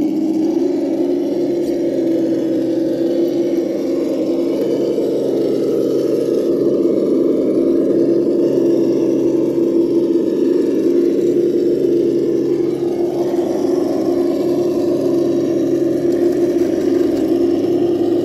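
Traxxas TRX-4 RC rock crawler's electric motor and geared drivetrain whining steadily as the truck creeps over logs and boulders.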